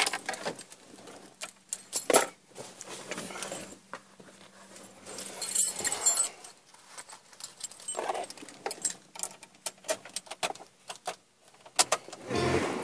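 Keys jingling and clicking in a hand, with scattered sharp clicks and light rattles throughout. A low steady hum comes in near the end.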